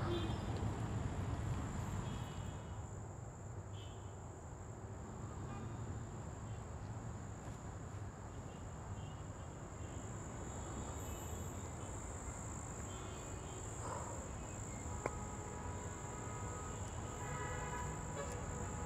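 Steady high-pitched insect drone, like crickets, over a low rumble of outdoor ambience, with faint higher tones coming in near the end.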